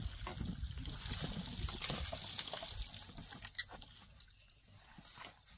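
Water trickling and sloshing in a plastic basin as clothes are washed by hand, busiest for the first three seconds, then quieter.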